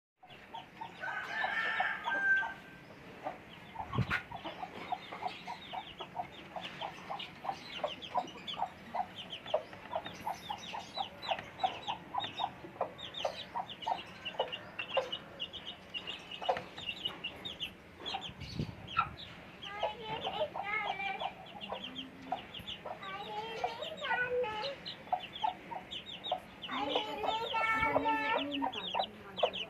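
A flock of Aseel chickens: chicks peeping rapidly and continuously, with adult birds clucking and giving longer calls now and then, loudest near the end. A single sharp knock about four seconds in.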